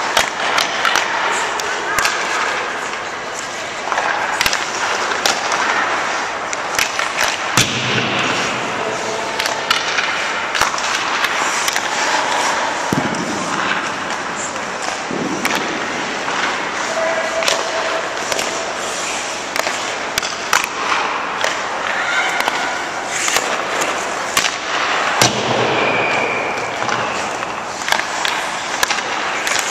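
Ice hockey practice on a rink: skate blades scraping across the ice, with many sharp cracks of pucks and sticks hitting scattered throughout.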